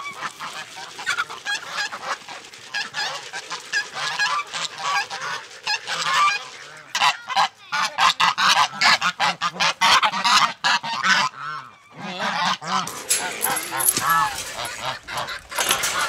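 A flock of domestic geese, Chinese geese among them, honking over and over, many calls overlapping, busier and louder in the second half.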